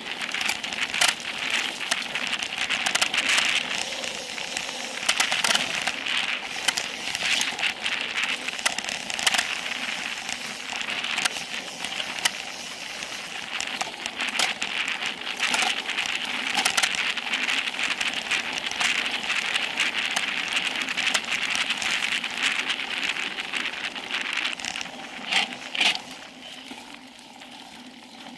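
Specialized Epic Pro mountain bike descending fast on dirt singletrack: a steady hiss of tyres rolling over dirt, broken by frequent sharp clicks and rattles as the bike goes over bumps. It gets quieter about two seconds before the end.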